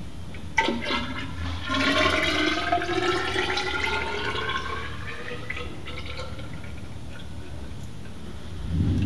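Hydraulic fork oil poured from a plastic measuring cylinder into the inner cartridge tube of a KYB closed-cartridge motorcycle fork. After a click about half a second in, the pour's ringing pitch rises steadily as the tube fills, then fades out about six seconds in.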